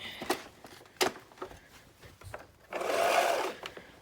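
Hoover Elite Rewind upright vacuum being handled: two sharp clicks, then about a second of loud mechanical whirring near the end.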